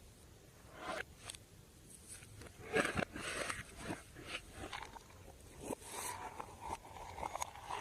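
Slime being squeezed and kneaded by hand, giving scattered soft sticky pops and crackles.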